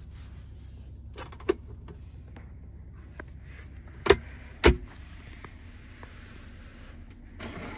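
Two sharp clicks about half a second apart as the BMW X6's centre-console armrest lid is handled, with lighter clicks a few seconds earlier, over a steady low hum in the car's cabin.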